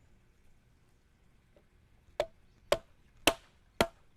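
Hammer striking a stacking stake to drive it into the ground: four sharp knocks about half a second apart, starting about two seconds in.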